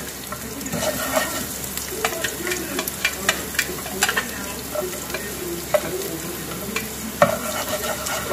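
Minced garlic sizzling in hot cooking oil in a nonstick frying pan, with repeated sharp clinks and taps as it is scraped in from a metal bowl and stirred with a spatula.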